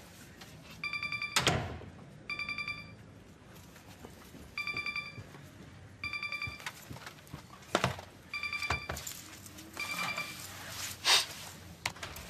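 A laptop video-call ringtone ringing: short, fast-trilling electronic tones in pairs, three pairs in all. Several thumps of movement fall between them, the loudest near the end.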